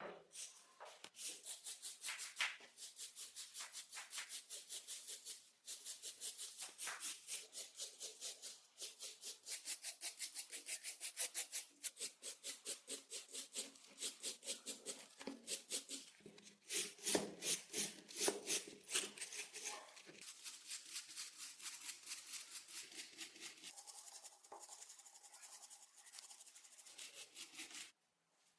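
Rhythmic back-and-forth hand rubbing or scraping on the rusty metal of an antique screw jack, about three to four strokes a second, with a few short pauses; it stops suddenly near the end.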